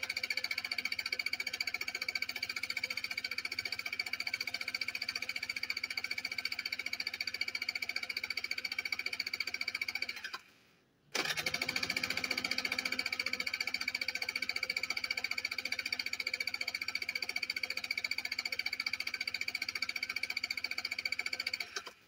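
Scooter's electric starter cranking the engine in two long bursts, each about ten seconds with a brief pause between them near the middle, a rapid pulsing churn with a steady high starter whine. The engine does not catch: a failed cold start.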